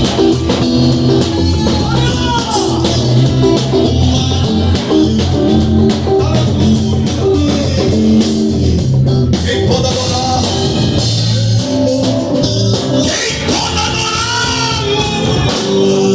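A band playing a gospel song, with guitar, bass and drum kit under a melody line that glides up and down.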